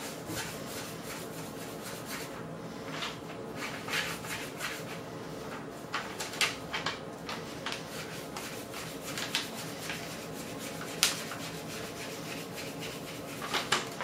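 Plastic squeegee rubbing in short, irregular strokes over a 3M adhesive sheet being pressed onto a metal plate, with a few sharper scrapes about six, eleven and thirteen seconds in.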